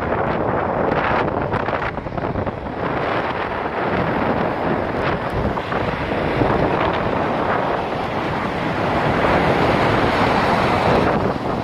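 Wind buffeting the microphone of a phone held out of a moving car's window, over the rush of tyres on the road: a loud, unsteady roar of noise with no distinct tones.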